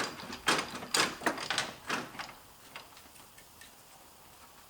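A quick run of sharp knocks and clacks, about six in the first two seconds, then quiet, as a car's A/C condenser is tugged and rocked against whatever still holds it in its mounting.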